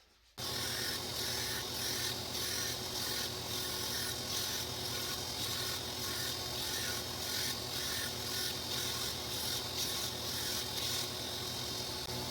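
Power grinder grinding the forged steel blade of a drill-bit knife, taking out cold shuts: a steady gritty hiss of abrasive on steel over a low motor hum. It starts abruptly just under half a second in and the hiss eases slightly near the end.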